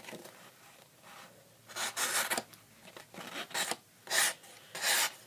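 A sheet of paper rustling and scraping in a series of short swishes, about five strokes in all, most of them in the second half.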